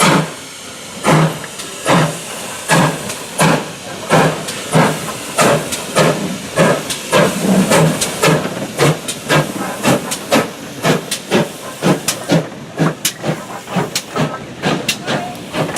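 GWR 57xx pannier tank steam locomotive pulling away, its exhaust chuffs quickening from about one a second to about three a second over a steady steam hiss.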